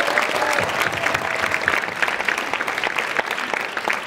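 Theatre audience applauding, a dense steady clatter of many hands clapping, with a voice in the crowd giving a drawn-out call for the first second or so.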